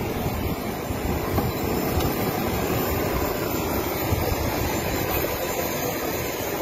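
Parked small jet aircraft running, a steady even rush of engine noise.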